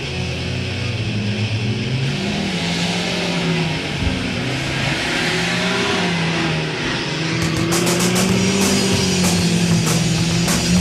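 Car engines running and revving up and down as the cars drive on grass, mixed with rock music. A steady drum beat comes in about seven seconds in.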